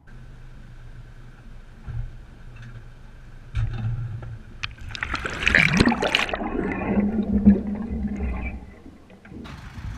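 Water sloshing, splashing and gurgling around a trailer-mounted camera at the waterline as the boat trailer backs into the water and the camera goes under. The splashing is loudest from about five to eight seconds in, over a low steady hum.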